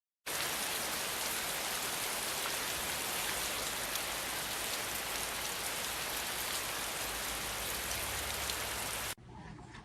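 A steady, even hiss with faint crackles, which cuts off abruptly about nine seconds in.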